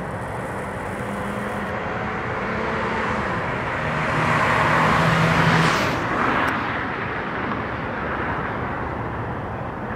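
Road traffic: a car passing fast, its tyre and engine noise swelling to a peak about five seconds in and then fading, over steady road noise.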